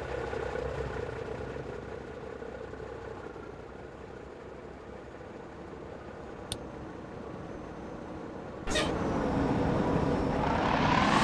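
Road traffic with a heavy vehicle's engine running steadily; about three-quarters of the way through it gets suddenly louder and its note rises, like a bus engine revving as it pulls up or accelerates.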